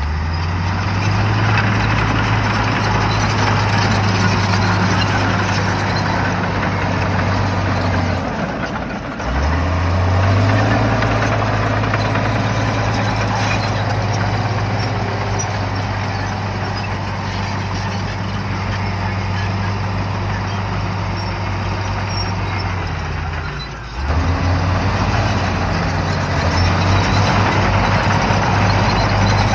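Shantui bulldozer's diesel engine running hard with a steady low drone over a broad clatter of machinery. The engine note sags and climbs back up about nine seconds in, and dips again briefly about twenty-four seconds in.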